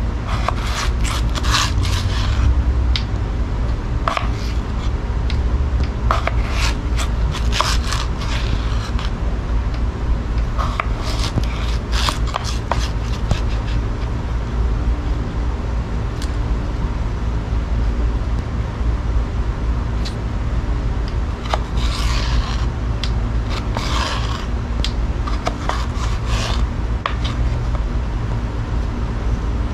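Jungle King knife's hollow-ground blade cutting a raw potato: irregular bunches of short scraping strokes, over a steady low rumble.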